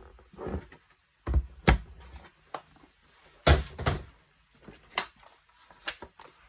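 A laptop being handled on a work surface: several separate knocks and thuds, the loudest about three and a half seconds in.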